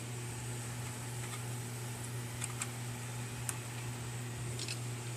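Running desktop PC's cooling fans giving a steady low hum, with a few faint clicks of handling.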